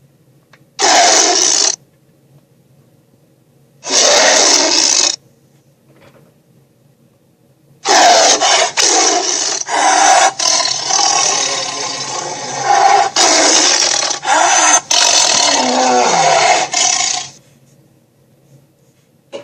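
Monster roar sound effects: two harsh roars about a second long each, then a long roaring growl of about nine seconds broken by brief gaps, over a faint low hum.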